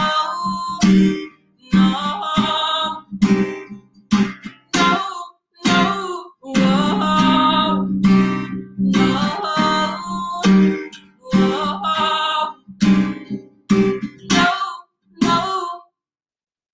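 A woman singing to her own strummed acoustic guitar, in short phrases with the sound dropping out between them. The song ends near the end and the sound stops suddenly.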